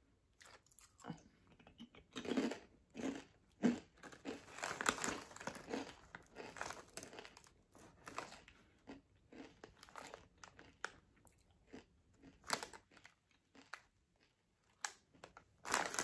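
A person crunching and chewing crisp barbecue potato chips in irregular bites, some louder than others. Now and then the chip bag crinkles as a hand reaches into it.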